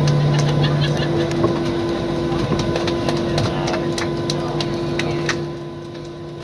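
Jet airliner cabin noise during the landing roll: a steady drone with low hums, and many short clicks and rattles of cabin fittings, easing off near the end as the aircraft slows.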